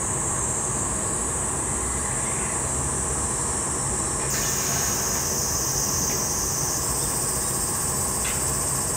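Glassblowing glory hole running: a steady burner and blower hum under a high, steady hiss that grows fuller and slightly lower about four seconds in.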